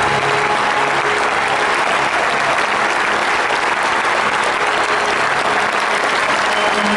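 Large stadium crowd applauding in a standing ovation: dense, steady clapping.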